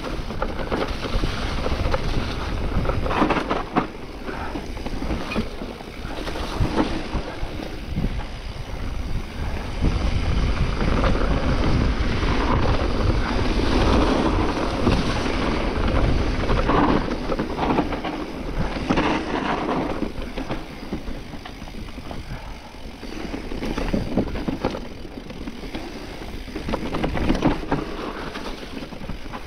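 Wind rushing over the microphone and a mountain bike rumbling and rattling over a dirt forest trail, louder for a stretch in the middle.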